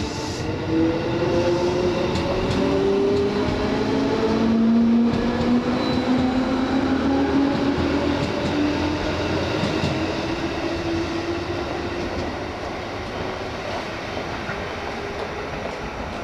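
JR 205 series electric commuter train running past and away, its traction motors whining in several tones that climb steadily in pitch as it gathers speed, over wheel-on-rail noise and clacking at rail joints. It is loudest about five seconds in and fades as the train draws away.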